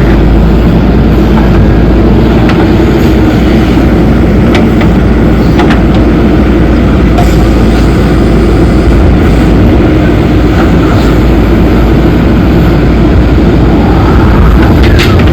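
Heavy diesel earth-moving machinery running steadily, a loud constant engine rumble with a few brief clanks.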